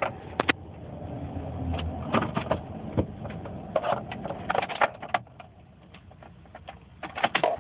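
Clicks and knocks of a phone being handled inside a truck cab, over a low engine rumble that fades to quieter about five seconds in.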